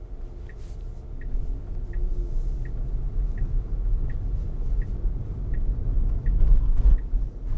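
Tesla Model Y turn signal ticking at an even pace, about three ticks every two seconds, over the low road and tyre rumble inside the cabin. The rumble grows about a second in as the car pulls away through the turn.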